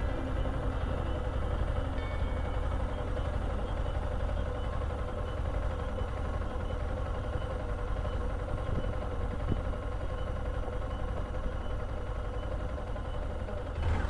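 Steady hum of a running vehicle engine with a constant low rumble and a held mid-pitched tone.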